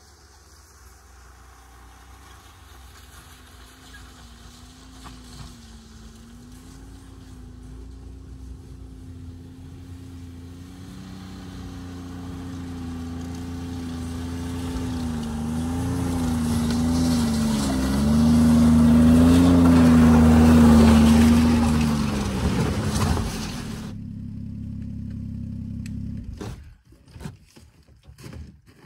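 Snowmobile engine approaching from a distance, growing steadily louder as it nears, its pitch wavering with the throttle. It is loudest as it pulls up close, then settles to a lower steady hum before the sound cuts off abruptly near the end, followed by a few sharp clicks and knocks.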